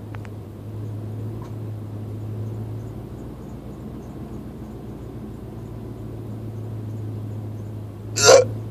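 A single loud hiccup from a man near the end, after several seconds of a steady low hum.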